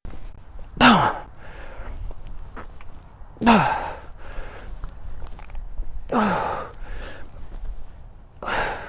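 A man's forceful voiced exhalations, four sharp "hah" breaths about two and a half seconds apart, each dropping in pitch. The held breath is released with the thrust of a kick. Softer breaths come in between.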